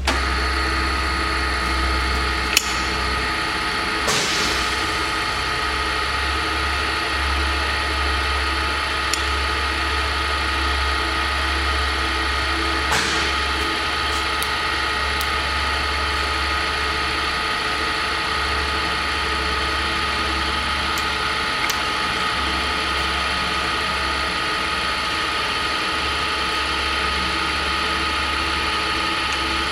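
Jet JRD-700 radial arm drill press running with a steady mechanical whine and low hum, with a few light clicks along the way.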